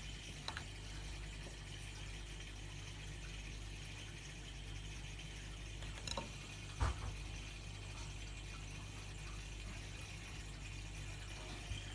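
Fish-room aquarium equipment running: a steady mains hum from pumps and filters, with water bubbling and trickling. A few light knocks break in, the loudest a little past halfway.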